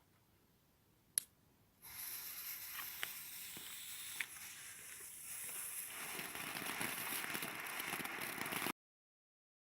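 A Weco Feuerfritze youth firework fizzing steadily after ignition, with a few sharp pops, preceded by a single sharp crack about a second in. The hiss grows louder about six seconds in and cuts off abruptly near the end.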